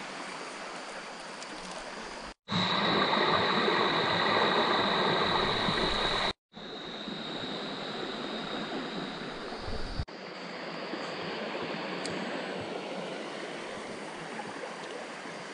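Creek water flowing steadily, with a brief silent drop-out at each edit cut about two and a half and six and a half seconds in; the rushing is louder between them.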